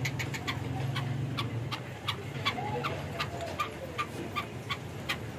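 Caged black francolin making a run of short, sharp ticks, about four a second, over a steady low background hum.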